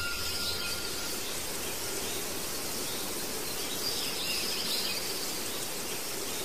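Steady, even background hiss, with faint higher chirp-like sounds shortly after the start and again about four seconds in.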